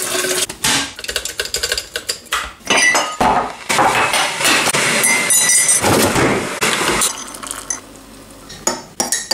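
Kitchen clatter of making tea: a stainless-steel kettle, a ceramic tea canister and a mug clinking as they are handled, then a quieter, steady pour of hot water from the kettle onto a teabag in a mug near the end.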